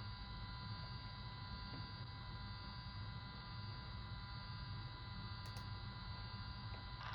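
Unidentified wideband radio signal near 31.28 MHz, heard through an SDR receiver's audio as a steady, buzzy horn-like tone with many overtones over a low hum. Right at the end it gives way to static hiss.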